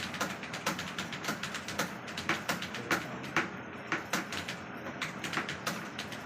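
Computer keyboard keys being typed in an irregular run of quick clicks, about three to four a second.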